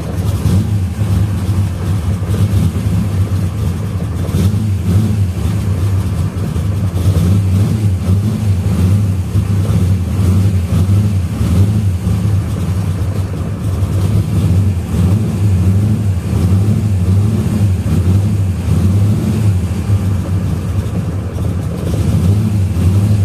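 Car engine running cold at a steady idle with no choke, heard inside the cabin through a 3-inch catted X-pipe and 2.5-inch Dynomax Super Turbo mufflers. It makes a steady low drone at about 83 dB in the cabin.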